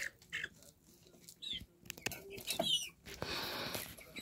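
Chicks cheeping in short high chirps, among small clicks and taps, with a brief scraping hiss about three seconds in.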